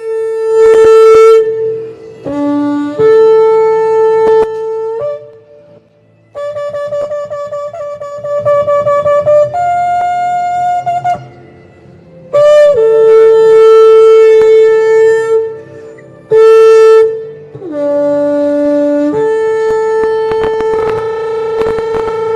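Shofar (ram's horn) blown in a series of long, loud blasts, each held on a steady note with short breaks between. Most are on the same note; a couple drop to a lower note and one steps up to a higher note partway through.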